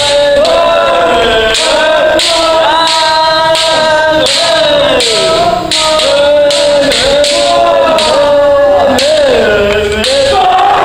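Several kendo practitioners giving long, drawn-out kiai shouts that overlap and slide in pitch, with repeated sharp clacks of bamboo shinai striking armour and each other.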